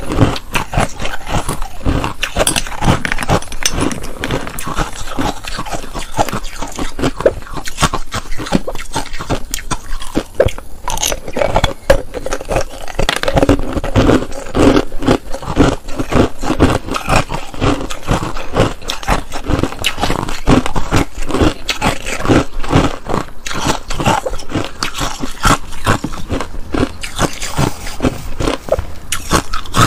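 Close-miked crunching and chewing of ice, a dense run of crackles and cracks, with a metal spoon scraping in the bowl.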